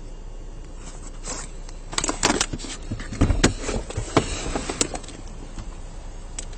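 A quick run of sharp clicks and knocks, with a few low thumps in the middle, over a steady low hum.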